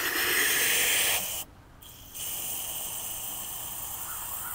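Water hissing out of a garden hose spray gun. A loud spell stops about a second in, and after a short pause a softer, steady spray runs on.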